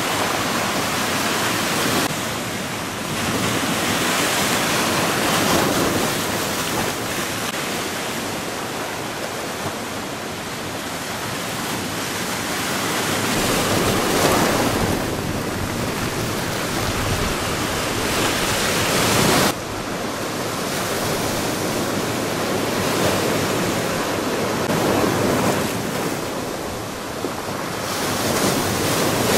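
Storm surf whipped up by a southwesterly gale: waves breaking over rocks and surging up the shore, with strong wind buffeting the microphone. The noise swells and ebbs with each wave set and changes suddenly twice.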